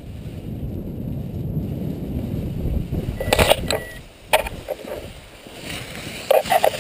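Wind buffeting a GoPro's microphone, dying away after about three seconds, followed by a few sharp knocks and rattles as the trailing camera swings into the grass and tumbles, with a cluster of knocks near the end.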